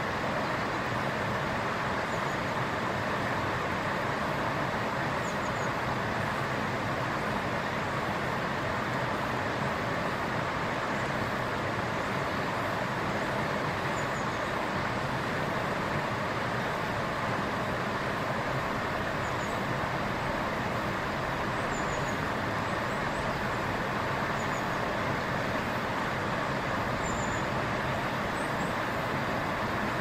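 Steady rushing of a stream's flowing water, with faint, short, high bird chirps every few seconds.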